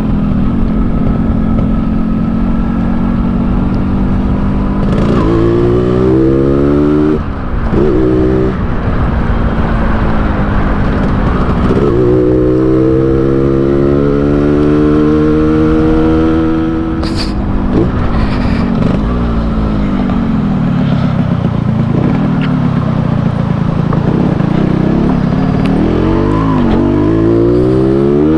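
Yamaha RX-King's single-cylinder two-stroke engine, set up in the Medan 'ngorok' (snoring) style, being ridden. It revs up with rising pitch and drops back at gear changes several times, settles into a lower, rougher run, and climbs again near the end.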